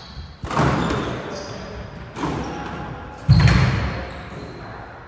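Squash rally: a squash ball struck by rackets and smacking the court walls, a few sharp echoing hits about a second apart. The loudest and deepest hit comes a little over three seconds in.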